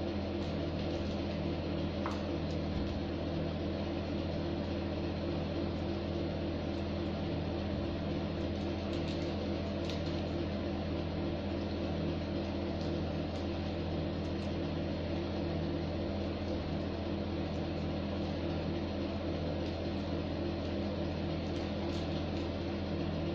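Steady low machine hum, unchanging throughout, with a few faint light clicks.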